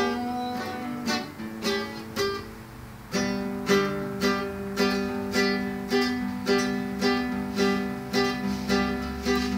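Guitar strummed in an instrumental break of a song. A few sparse chords come first, then from about three seconds in a steady strumming rhythm of roughly two strokes a second.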